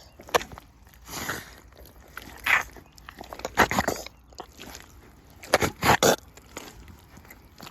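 Rubber boots squelching and sucking in thick mud with each step: about six separate wet squelches, roughly a second apart.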